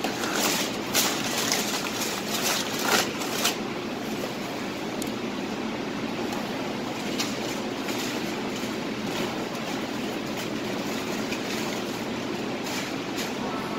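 Steady whooshing noise of a commercial kitchen exhaust hood fan running. Several knocks and clatters in the first few seconds, with a few more later on.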